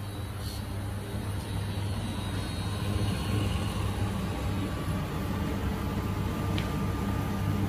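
Steady low hum and rush of a kitchen stove while cooking oil heats in a wok, slightly louder about three seconds in; the oil is not yet hot enough to sizzle.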